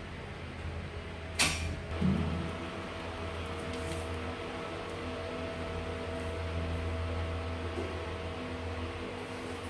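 Indoor room tone: a steady low electrical hum, broken by a sharp click about a second and a half in and a short low thump just after it.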